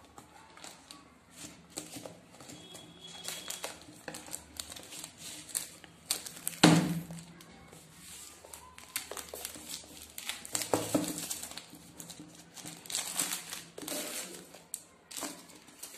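Plastic shrink-wrap on a smartphone box crinkling and crackling as the box is handled and the wrap worked open, with a louder knock a little before halfway through.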